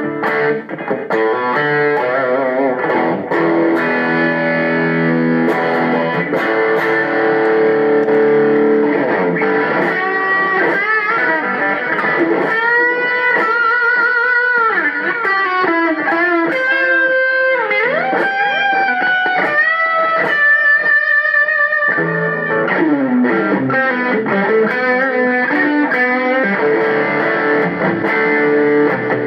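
Electric guitar played through a Zoom G3Xn multi-effects pedal: held chords ringing for about ten seconds, then a lead line with string bends and vibrato, then chords again near the end.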